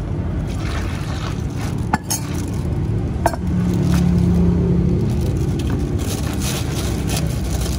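Steady low background rumble with a few sharp clinks, about two and three seconds in, and light scraping while Thai iced tea is poured from a stainless steel mug into a plastic bag of ice and milk is added from a can.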